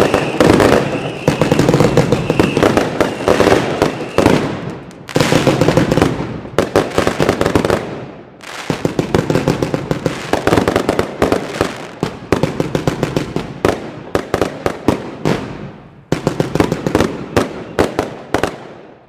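Aerial fireworks bursting into crackling stars: a dense, rapid crackle and popping that comes in several waves with brief lulls, and a high steady whistle over the first four seconds.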